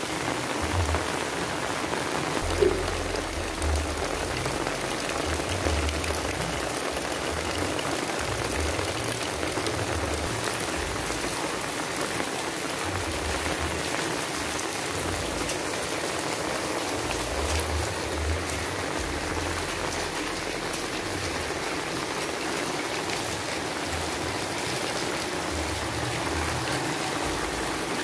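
Steady rain falling on wet ground and puddles, a dense, even hiss of drops, with an intermittent low rumble underneath.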